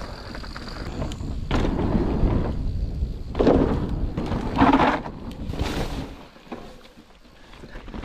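Mountain bike rolling down a dirt trail: a steady rumble of tyres and a rattling bike, with several louder rushes of noise in the middle, dropping quieter toward the end.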